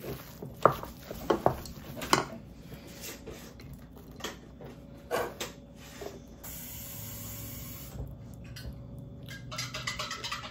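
Kitchen utensils knocking and clinking against dishes and a pan: several sharp knocks in the first few seconds, more around the middle, and quick light clinks near the end. A steady low hum runs for a few seconds in between.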